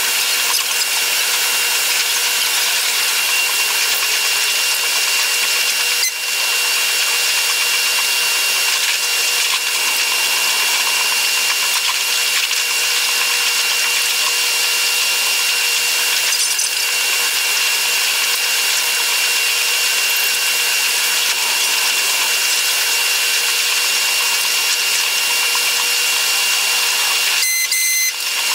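Running noise of a Taiwan Railways EMU100 electric train, played back eight times faster, so it becomes a steady, high, buzzing hiss with two faint steady tones. It dips briefly about six seconds in and again near the end.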